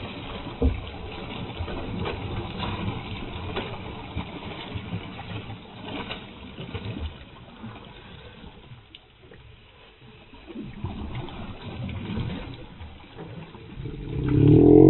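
Water splashing and churning as a hooked dorado thrashes at the surface beside the boat, over steady boat noise; it dips quieter about two thirds of the way through. Near the end a loud wavering cry starts.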